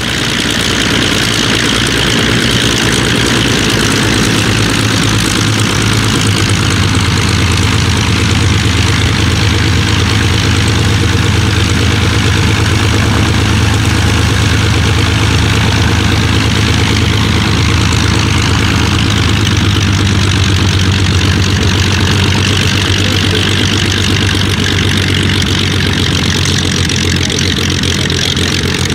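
De Havilland DH.89 Dragon Rapide's two Gipsy Six engines running at low taxiing power, a steady low propeller-engine drone as the biplane taxis on grass.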